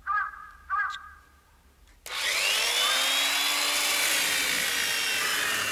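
A chainsaw starts up and saws into a log, a loud steady run that comes in abruptly about two seconds in. Two short sounds come before it in the first second.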